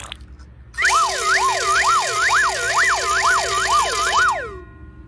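Siren wailing quickly up and down, about two rises and falls a second. It starts about a second in, runs for about three and a half seconds, then trails off.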